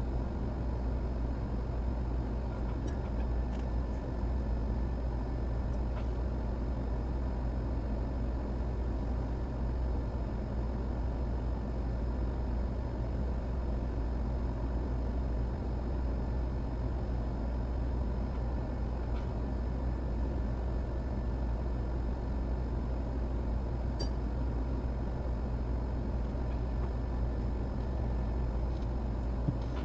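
Steady whir and low hum of electric bench equipment running at a microsoldering station, with a few faint small clicks of work on the board.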